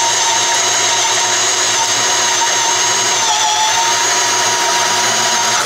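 Makita 18V LXT brushless cordless hammer drill in its low speed 1, running under steady load as it bores a 1¾-inch Irwin Speedbor self-feeding bit into a wooden 4x4. The motor and gear whine holds steady, sags slightly about three and a half seconds in as the bit bites harder, then picks back up.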